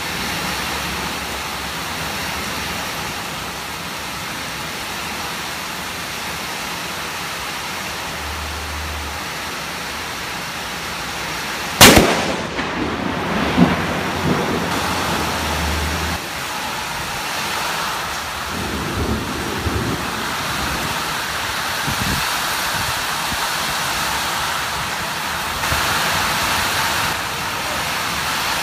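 Heavy rain falling steadily. About twelve seconds in, a lightning strike brings one sharp, very loud thunderclap, followed by rumbling thunder for a few seconds, with more low rumbles a little later.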